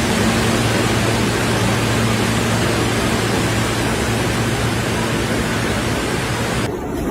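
Loud, steady rush of water with a low hum underneath. Near the end it changes abruptly to a thinner, quieter noise.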